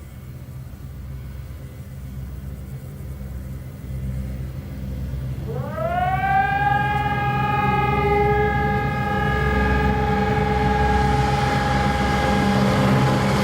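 Civil-defence sirens sounding a scheduled test. A low rumble builds, then about five and a half seconds in a siren starts with a quick upward glide in pitch and settles into a loud, steady tone. A second, lower tone joins a couple of seconds later.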